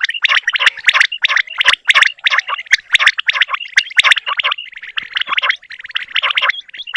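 Several quails calling at once, a dense, rapid run of short, sharp, overlapping calls with no pause.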